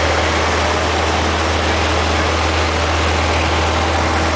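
Cessna light aircraft's piston engine and propeller running steadily on the ground, a loud constant drone with a deep hum, heard from inside the cabin.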